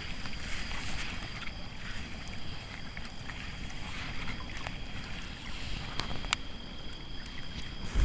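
Campfire crackling, with one sharp pop about six seconds in, over a steady two-tone high drone of night insects and a low, uneven rumble from the lake shore.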